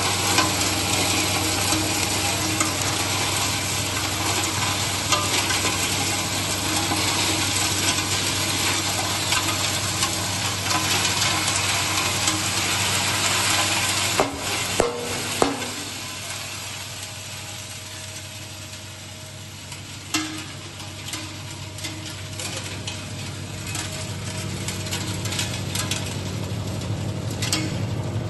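Oil cake grinding machine running with a steady hum and a dense crackling hiss as pieces of oil cake are crushed. A few sharp knocks come about halfway through, after which the crushing noise thins out, leaving the machine's hum with scattered ticks.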